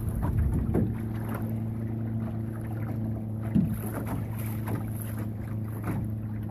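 Small waves slapping and lapping against a small sailboat's hull, with wind on the microphone, over a steady low hum. A short thump comes about three and a half seconds in.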